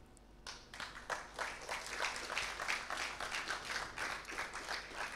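Audience applauding: a dense patter of handclaps that starts about half a second in and carries on steadily.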